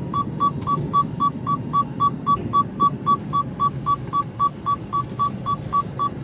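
Truck cab seatbelt warning beeping, short high beeps at about four a second, because the driver's seatbelt is unbuckled. Under it runs the low, steady rumble of the Mercedes Actros's diesel engine as the truck moves slowly.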